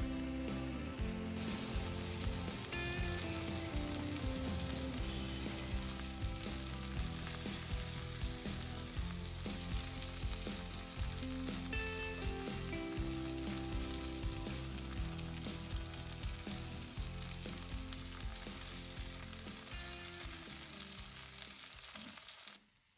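Chicken thighs sizzling steadily as they fry in BBQ sauce in a nonstick pan, with a spatula turning the pieces at the start. The sizzle cuts off suddenly near the end.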